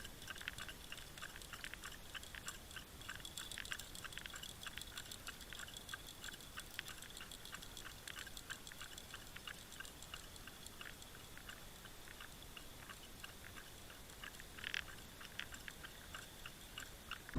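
Faint underwater ambience picked up by an underwater camera: dense, irregular small clicks and crackles with a thin, steady high tone, and a slightly louder cluster of clicks near the end.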